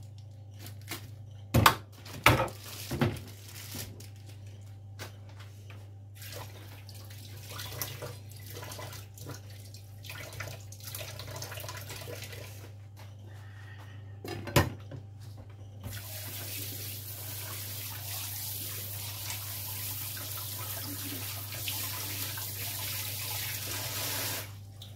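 A few loud snips of kitchen scissors cutting open a plastic bag. Later, a kitchen tap runs steadily into a stainless steel sink for about eight seconds, as a raw whole chicken is rinsed, then shuts off suddenly.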